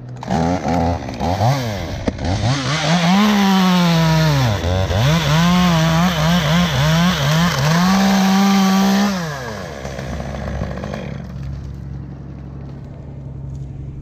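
Stihl chainsaw cutting through a sycamore limb. The engine revs up and down several times and is held at full throttle through the cut, then drops back to idle about nine and a half seconds in.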